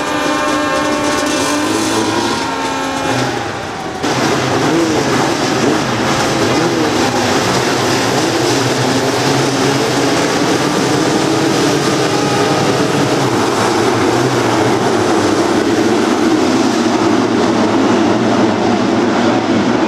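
Engines of a field of sidecar motocross outfits. At first several are held revving at steady pitches at the start gate. About four seconds in the sound turns suddenly louder and denser, a dense drone of many engines running hard together as the pack races off.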